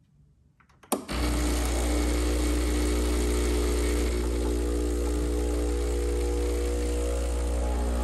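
An espresso machine's pump switches on with a click about a second in, then hums steadily and loudly as it pushes water through the coffee, before the shot starts to flow.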